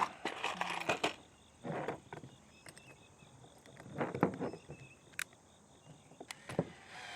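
A 1/2 inch wrench tightening the bolts of the kayak landing-gear assemblies: a few separate short bursts of ratcheting and scraping, with sharp metal clicks between them.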